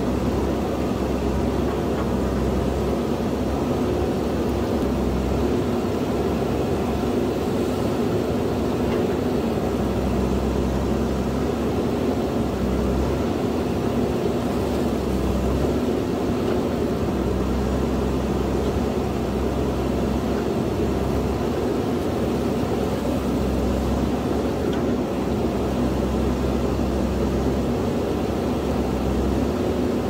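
Diesel engine of a JCB backhoe loader running steadily as it works. Its low rumble swells and eases every few seconds.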